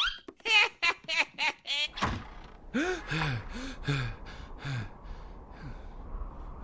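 Cartoon character's cackling laughter: a rapid run of short 'ha's, then slower, lower ones that fade out toward the end.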